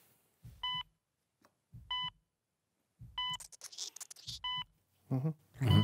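Heart-monitor sound effect: a short electronic beep repeating steadily about every second and a quarter, five times. Light rustling comes between beeps in the middle, and a louder low sound comes near the end.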